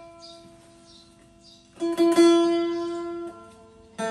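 Rak-wood acoustic-electric phin, a Thai Isan lute, being plucked: notes ring out over its steady drone string. One note dies away, a new group of plucks about two seconds in rings and fades, and fresh notes start right at the end.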